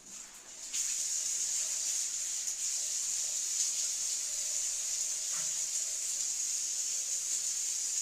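Water running steadily from a tap or shower fitting, an even hiss that starts about a second in.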